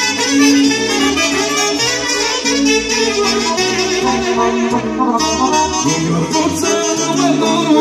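Live folk band playing an instrumental break of a Romanian folk song: clarinets and a saxophone play a fast, ornamented melody over a steady bass line.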